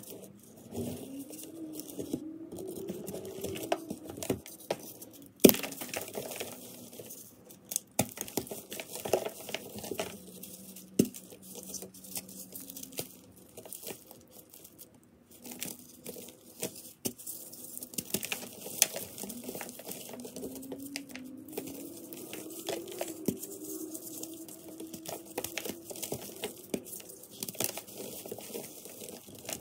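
Hands crushing and crumbling dry chunks of reformed gym chalk: a steady run of dry crunches and crumbling, broken by sharper cracks as pieces snap, the loudest about five seconds in.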